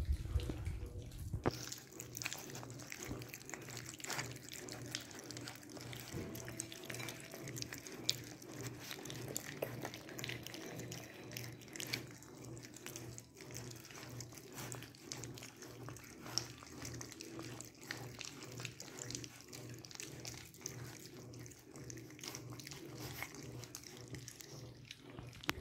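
Several one-month-old American Staffordshire terrier puppies eating soft wet food from a shared plate: a continuous run of small wet smacking, lapping and chewing clicks, over a low steady hum.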